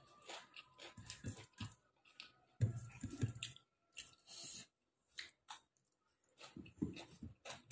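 A person chewing food with wet mouth smacks and clicks, in irregular bursts with short pauses between.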